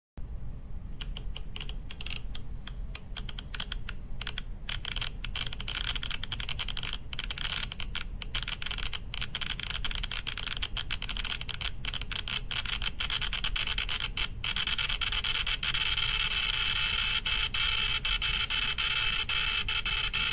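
Geiger counter crackling: a dense stream of irregular clicks over a hiss, growing a little louder and busier in the second half.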